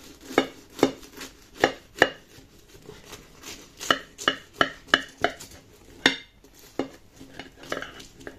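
Knife cutting down through the crisp baked puff-pastry crust of a meat pâté lorrain, a series of sharp crunches and cracks, mostly in two quick runs.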